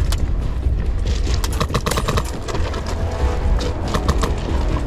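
Airsoft rifles firing short volleys of sharp pops and snaps, in clusters about a second and a half in and again around four seconds in, over background music.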